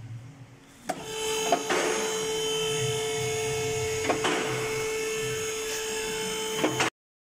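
Two-post car lift's electric hydraulic pump motor starting about a second in and running with a steady whine as it raises the car, with a few sharp clicks along the way, then cutting off abruptly just before the end.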